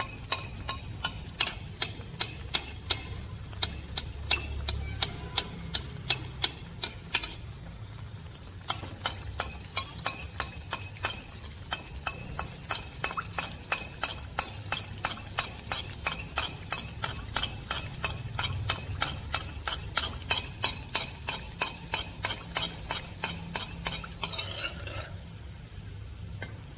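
A steel spoon clinking against a metal kadhai about two to three times a second as hot oil is spooned over an anarsa deep-frying in it. The clinking pauses briefly about eight seconds in and stops near the end.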